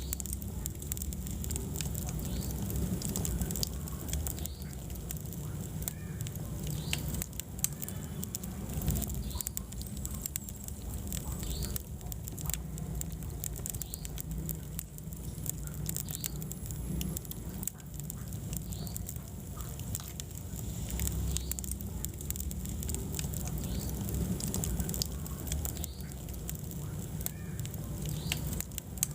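Wood fire burning in a fireplace: a steady low rumble of flames with dense, sharp crackles and pops throughout, and short high squeaks every second or two.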